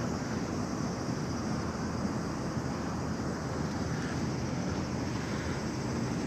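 Steady wind noise on the microphone, a low, even rush with no pauses.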